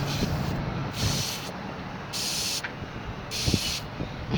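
Air hissing out of a punctured tire in four short spurts about a second apart, as a tire-plug reaming tool is worked in and out of the nail hole. A few faint knocks near the end.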